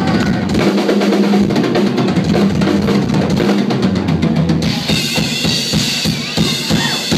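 Live drum kit solo: fast, dense strikes on bass drum, toms and snare. About five seconds in, the drumming thins out and the crowd starts cheering and whistling.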